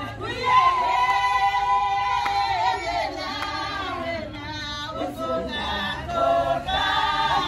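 A group of women singing a song together in chorus, voices only, with long held notes.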